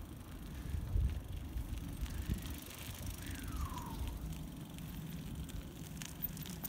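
Bicycle rolling along a gravel path: a steady low rumble of tyres on gravel and wind on the microphone, with one short falling whistle about three seconds in.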